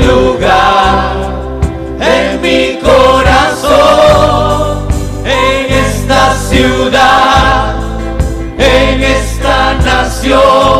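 Gospel choir singing in Spanish worship style, voices in harmony, over instrumental accompaniment with a steady bass line.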